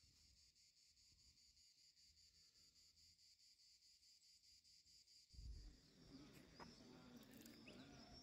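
Faint steady chirring of insects in summer heat. About five seconds in, a low thump gives way to slightly louder outdoor ambience with short high chirps.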